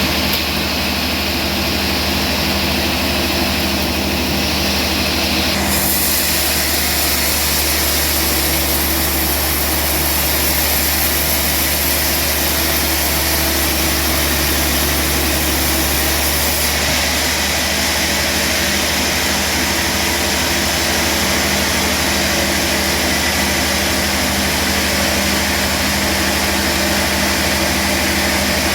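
Sawmill machinery running steadily: a low engine hum with a steady hiss over it. The hiss gets brighter about six seconds in.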